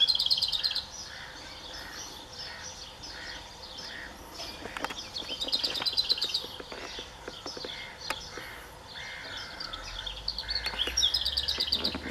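Garden songbirds singing: a fast trilled phrase repeated about every five or six seconds, with a run of evenly spaced lower notes from another bird between the phrases.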